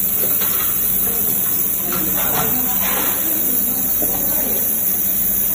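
Hand-held fiber laser welder running steadily along a sheet-metal seam: a constant high hiss over a steady low hum.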